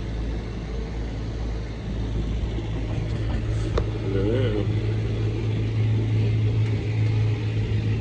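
Sailboat's auxiliary motor running steadily with a low hum, over wind and water noise.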